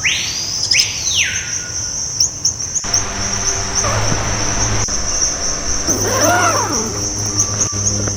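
Insects shrilling steadily in woodland, a high pulsing drone. A swept whoosh effect sounds in the first second and a half, and soft background music comes in about three seconds in.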